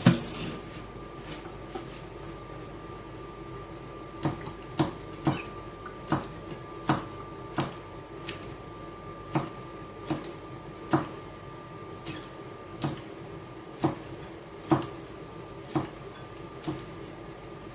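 A series of sharp, irregular clacks, roughly one every half second to a second, starting a few seconds in, over a steady faint hum.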